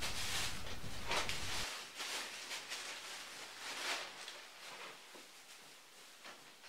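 Faint kitchen handling sounds: a few soft knocks and rustles as a plate of food is handled and put down, the clearest about a second in and about four seconds in. A low hum under them cuts off abruptly about a second and a half in.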